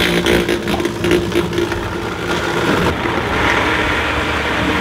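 Loud countertop blender motor running at speed, blades chopping beetroot, apple, carrot and water into a thick puree. The sound shifts about three seconds in as the mix loosens under the tamper.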